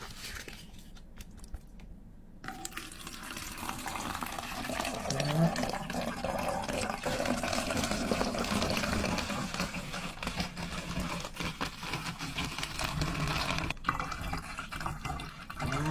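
Liquid poured from a small glass jug into a plastic bottle, a steady pour that begins about two and a half seconds in and runs on for some ten seconds.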